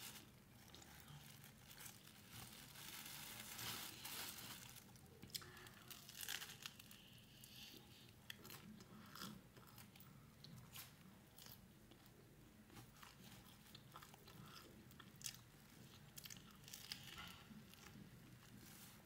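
Faint sounds of a person eating a sandwich close to the microphone: soft chewing with scattered small crunches and mouth clicks.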